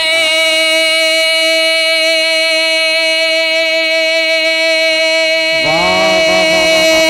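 A man singing a naat, holding one long note steady in pitch for about five and a half seconds. Then a lower voice comes in and the melody moves on.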